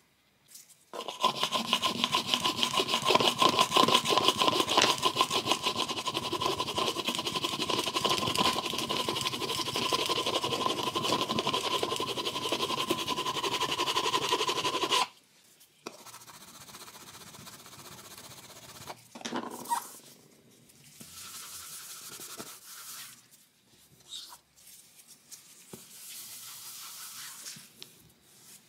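Fast, vigorous rubbing of a ridged plastic repair tool over a laminate floor for about fourteen seconds, stopping abruptly. Shorter, quieter bouts of rubbing follow.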